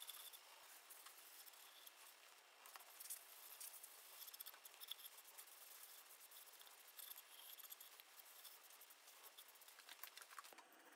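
Faint scratchy rustling of a paper pad rubbed by hand over a segmented walnut and maple vase on the lathe.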